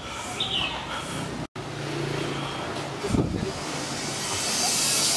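Outdoor traffic ambience: a motor vehicle runs with a steady low hum, then a hiss swells near the end as a vehicle passes. A bird chirps once near the start.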